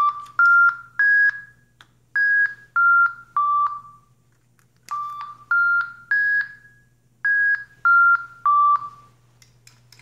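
Toy robot singing birds playing electronic whistled chirps: three notes stepping up in pitch, then three stepping back down, the six-note phrase played twice with a pause between.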